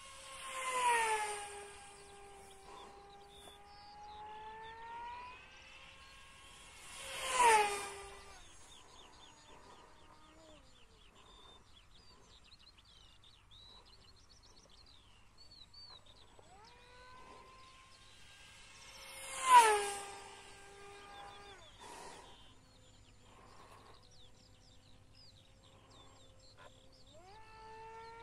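Electric motor and propeller of a small 4S-powered Depron RC speed plane whining past in three fast passes, the pitch dropping sharply each time it goes by. Between passes the whine fades and birds chirp faintly.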